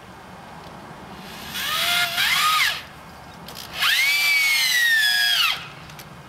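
Power drill driving screws into wooden window trim, in two runs: each time the motor whirs up in pitch, then drops as the screw bites and seats, and stops.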